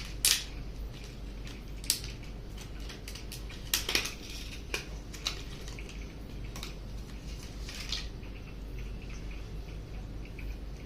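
Hands handling a laptop RAM module and small parts: scattered light clicks and taps, the sharpest just after the start and a few more spread out over the following seconds.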